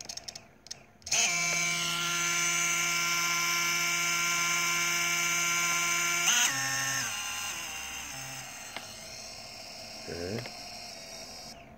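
Brushless drone motor on a Spedix GS30 ESC running BLHeli_32, the one ESC that the owner says is acting up. It gives a loud steady electric whine with many overtones from about a second in. Around six seconds in the pitch jumps briefly, then drops and the whine grows weaker, cutting off just before the end. A few clicks come before the whine starts.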